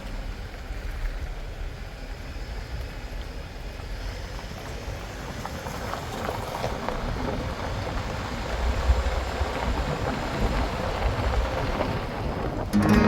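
Off-road vehicle driving, a low rumble under steady rushing wind noise on the microphone.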